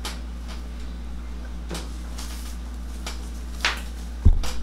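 Hands pressing and rubbing a man's bare back over a towel during a massage: a few short swishes, then a single sharp low thump near the end, over a steady low hum.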